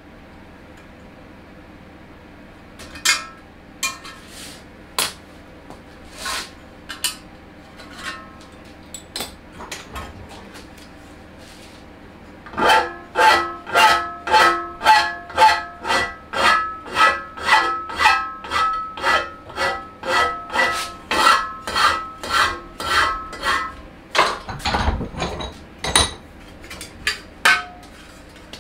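A hammer striking a metal bracket clamped in a bench vise, bending it to shape. A few scattered taps come first, then about a dozen seconds of steady blows, about two a second, each leaving a metallic ring, and a couple of duller knocks near the end.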